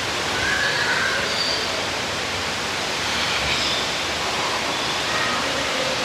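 Steady rushing of an artificial indoor waterfall, with a few faint short bird calls over it.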